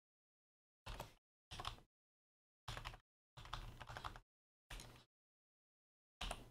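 Computer keyboard typing: six short bursts of keystrokes, about one a second, with dead silence between them.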